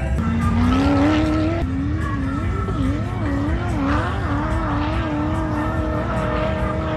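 Off-road vehicle engine revving. Its pitch climbs over the first second and a half, then swings up and down about twice a second as the throttle is worked, and settles to a steady drone near the end.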